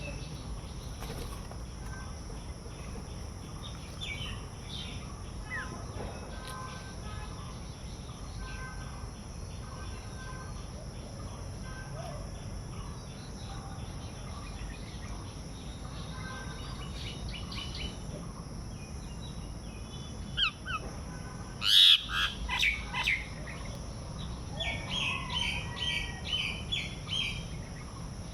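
Small birds chirping and calling over a steady low rumble of outdoor background noise. Near the end there is a much louder sharp burst, followed by a quick run of chirps.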